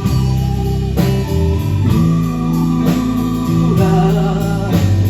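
Live band playing an instrumental stretch of a pop song: guitar chords over held bass notes, with a beat about once a second.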